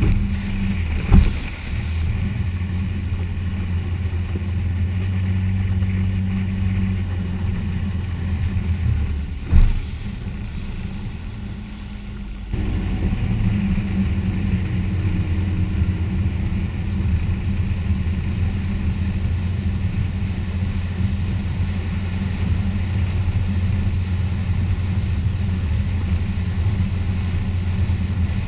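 1989 Sea Swirl Tahoe's engine running steadily under way, heard on board with wind and water noise. Two sharp knocks, about a second in and about a third of the way through. The engine eases off briefly, then comes back up sharply a little before halfway.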